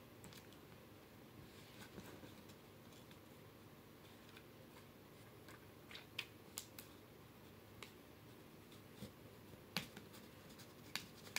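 Near silence broken by a few faint, scattered clicks and taps of small objects being handled.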